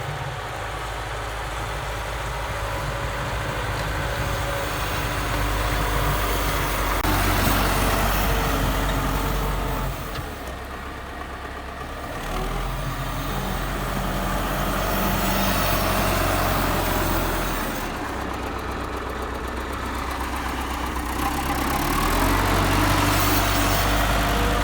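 Diesel engine of a YuMZ tractor-based EO-2621 excavator running under varying load, its speed and loudness rising and falling several times.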